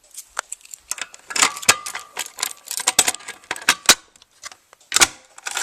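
Keys jangling and a key working in the lock of a Fire-Lite BG12L manual fire alarm pull station being reset, an irregular run of metallic clicks and rattles.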